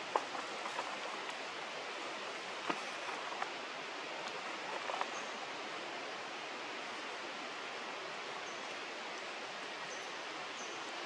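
Steady outdoor ambient hiss, with a few faint clicks and taps in the first half and a few brief, faint high peeps later on.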